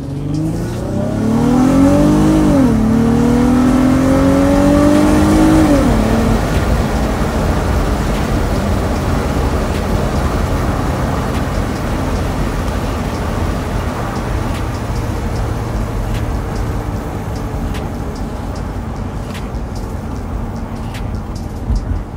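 Car engine heard from inside the cabin, climbing in pitch as the car accelerates. It drops back with a gear change about two and a half seconds in, climbs again until about six seconds in, then settles into a steady engine and road-noise drone while cruising.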